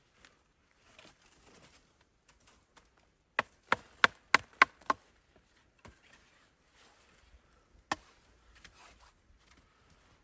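Wood being chopped: six quick, sharp strokes at about three a second, then a single stroke a few seconds later.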